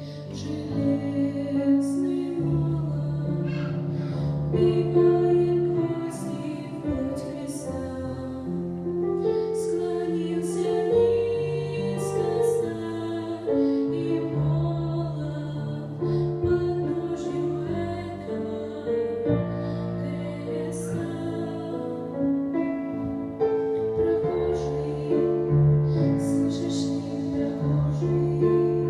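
Music: a slow song, a woman singing over keyboard accompaniment with held bass notes.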